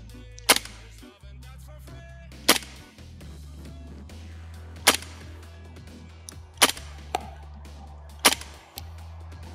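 GHK Steyr AUG gas blowback airsoft rifle firing single shots, five sharp cracks about two seconds apart, over background music.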